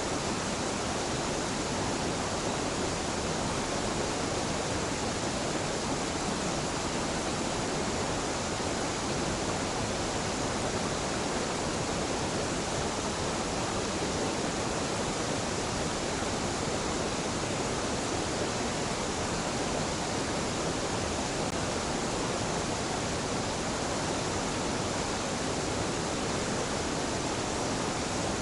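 Waterfall and mountain stream water rushing in a steady, unbroken roar of falling water.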